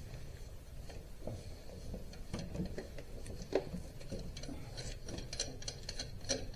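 Irregular light metallic clicks and taps as axle-housing parts are handled and turned by hand during assembly, growing busier in the second half.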